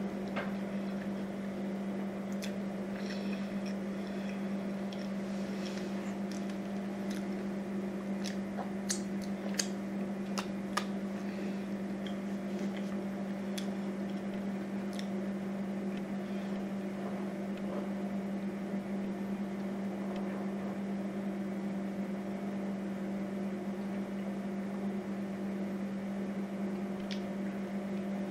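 A steady low mechanical hum, with scattered soft mouth clicks and smacks of chewing a bacon cheeseburger, most of them in the first half and one more near the end.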